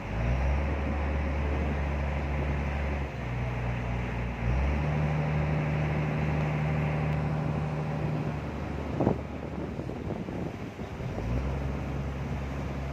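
Speedboat engine running, a low hum that shifts pitch a few times, with water rushing past the hull and wind on the microphone. A single sharp click about nine seconds in.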